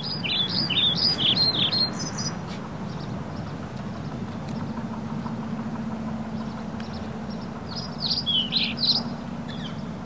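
A songbird singing two quick phrases of rising and falling whistled notes, one at the start and one about eight seconds in, over a steady low hum.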